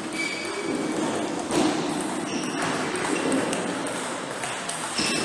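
Table tennis play: a few sharp knocks of the celluloid ball off bats and tables, with brief high pings and squeaks, over a steady murmur of voices.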